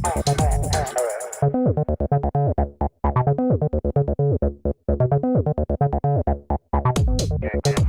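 Background electronic music with a steady beat and synthesizer keyboard notes; the high end drops out for a stretch in the middle.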